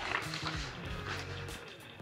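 Background music with low, steady notes that change every fraction of a second.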